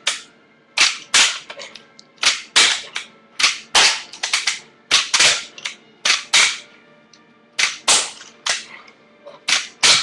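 Fingerboard (finger skateboard) doing repeated ollies on a granite countertop: each trick is a sharp clack as the tail is popped against the stone, then a second clack as the board lands about a third of a second later. This happens about seven times, roughly every second and a half.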